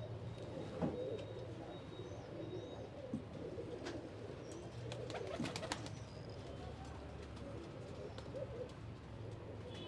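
Domestic flying pigeons cooing, low wavering calls overlapping throughout. A few sharp clicks come about halfway through.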